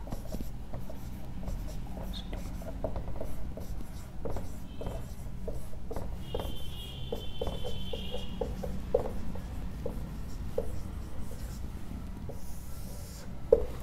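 Marker pen writing on a whiteboard: a run of short, quick strokes and squeaks as letters are formed, with one drawn-out high squeak from about six to eight and a half seconds in.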